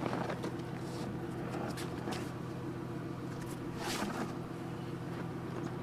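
Vehicle engine idling steadily, with a few brief scuffing noises over it, the loudest about four seconds in.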